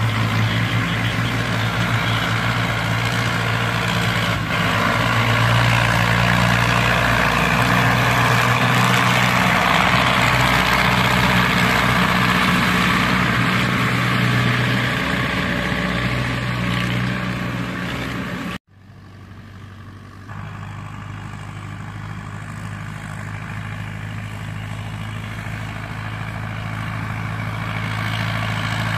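Hindustan tractor's diesel engine running steadily under load as it pulls a heavily loaded sugar cane trolley. After a sudden cut about two-thirds of the way through, the engine is heard from farther off and slowly grows louder as it approaches.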